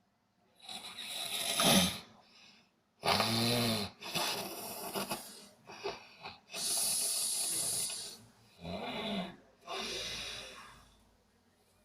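A person snoring in sleep: a run of rough breaths, some with a pitched, rattling snore and others a long hissing breath. The pitched snores come about three seconds in and again near nine seconds.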